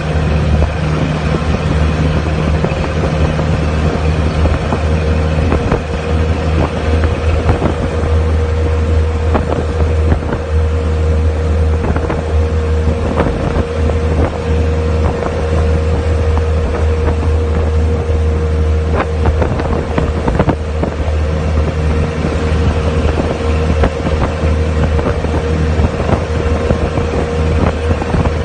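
Jeep engine running steadily at road speed, a deep drone with a steady higher hum over it, with wind buffeting the microphone. A few short knocks come through as it drives.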